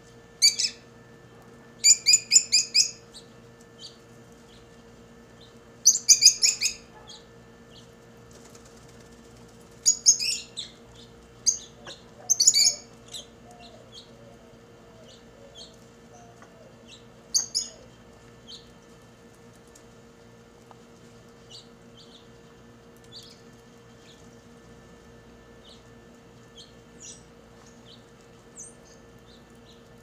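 Lovebirds chirping in short clusters of sharp, high calls, loudest during the first eighteen seconds, then only faint scattered chirps.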